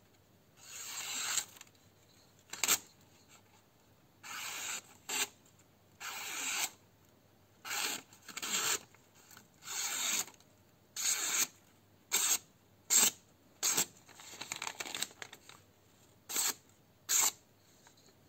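A grafting knife slicing through a thin paper receipt in about fifteen separate strokes, some long drawn cuts and some short snips, each a scratchy rasp of paper parting. This is a sharpness test of the blade just after it was stropped on leather with GOI polishing paste.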